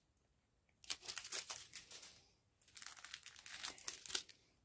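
Thin clear plastic sachets of diamond-painting drills crinkling as they are handled, in two short bursts of crackling.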